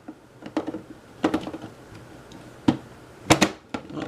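Hard clicks and knocks from a camcorder and its battery packs being handled: about six separate sharp knocks with quiet gaps between, the loudest near the end.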